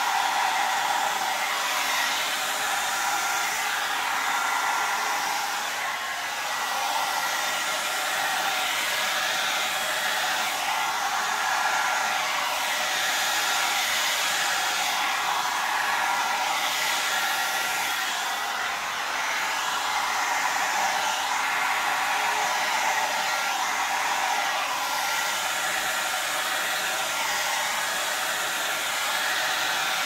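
Handheld hair dryer running continuously, a steady rush of air with a faint steady whine from its motor.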